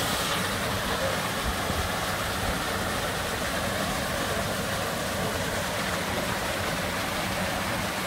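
Steady rush of flowing water from a canyon stream and waterfall.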